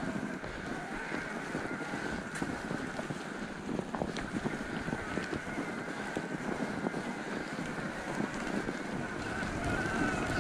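Mountain bike tyres crunching and crackling through fresh snow on a forest trail, a dense steady crackle, with wind buffeting the microphone and a steady high whine running underneath.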